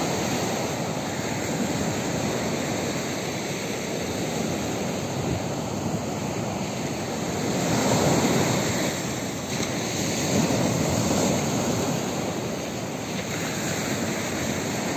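Surf breaking and washing up the beach in a heavy swell: a steady rush that swells about eight seconds in and again a couple of seconds later.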